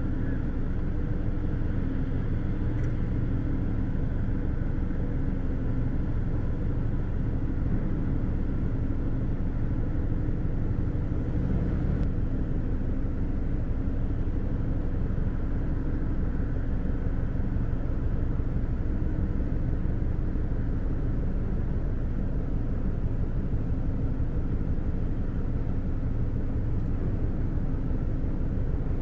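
Steady deep rumble and hum of a container ship's diesel machinery as the ship gets under way, unchanging throughout.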